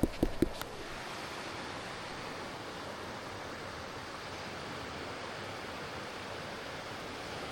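Steady rushing of fast-flowing water, with a few quick thumps in the first half-second.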